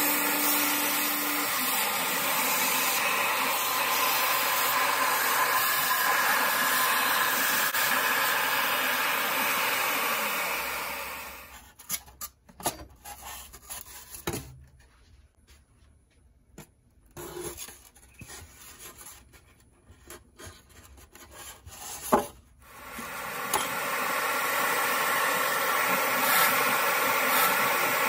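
Shop vac and CNC mill spindle running steadily as an end mill cuts a foam block. About eleven seconds in they wind down, leaving scattered clicks and knocks as the foam block is handled, with one sharp knock; then the vacuum and spindle start up again and run steadily.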